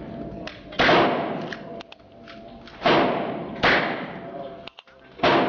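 Four loud gunshots at irregular intervals, each followed by an echoing tail, with fainter shots between them.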